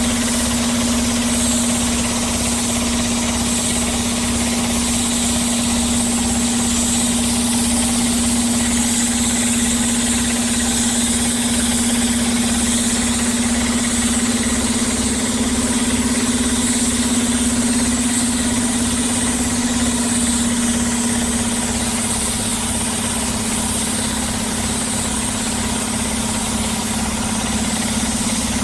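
Diesel engine of heavy road-construction machinery running steadily, with an even low pulsing of about two beats a second and a constant hum.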